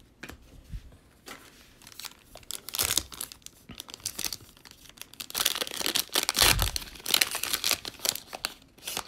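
A 2020 Panini Prizm foil trading-card pack being torn open and crinkled by hand: irregular crackling and tearing, loudest about six seconds in.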